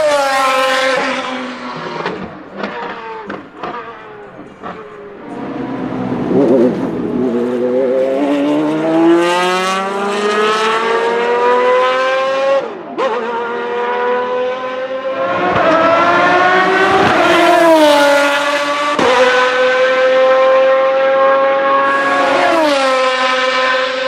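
Lamborghini Murciélago R-SV GT1's 6.5-litre V12 racing engine at full throttle, its pitch falling as it goes by at the start, with a few sharp exhaust pops while the revs drop. It then pulls hard, rising in pitch through the gears with several quick upshifts.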